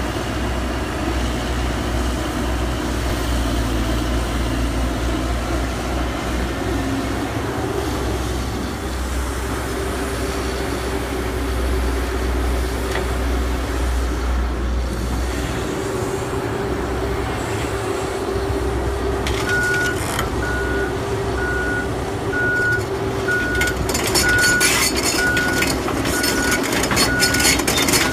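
Caterpillar 311C U excavator's diesel engine running under load while it digs and swings mud, the tone of its low hum shifting about halfway through. From about two-thirds in, a reversing alarm beeps steadily, about once every 0.7 s. Near the end come a run of metallic knocks and rattles.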